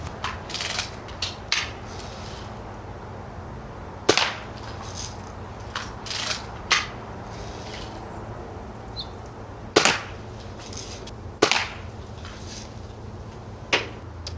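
Lever-action BB rifle firing: about five sharp cracks a few seconds apart, with smaller clicks and rattles between the shots.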